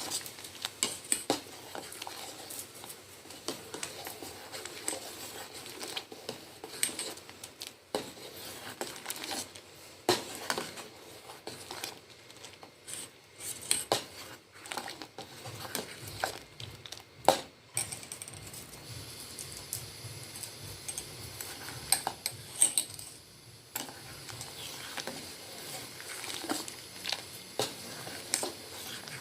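A spoon stirring a pot of spiced milk as it boils, clinking and scraping against the pot in irregular light clicks, with a few louder knocks.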